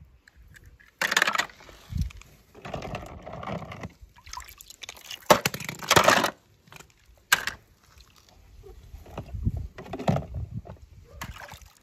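A series of irregular scraping and rustling noises in short bursts, with quieter gaps between them.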